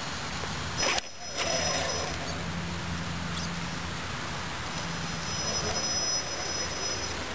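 Electric RC monster truck's motor and drivetrain whining as it drives over grass, the high whine coming in twice over a steady background hiss, with a brief loud knock and short dropout about a second in.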